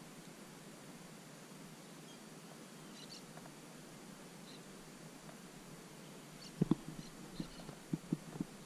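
Quiet open-marsh background with a few faint, short, high bird chirps scattered through it. About two-thirds of the way in, a run of soft, dull knocks starts, several a second.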